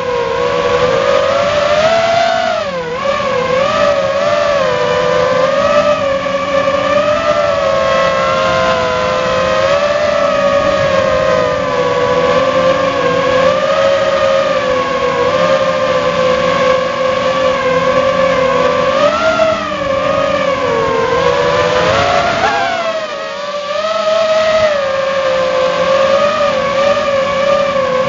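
Walkera F210 racing quadcopter's motors and propellers whining, recorded by the camera on the drone. The pitch wavers up and down with the throttle and dips briefly about three-quarters of the way through.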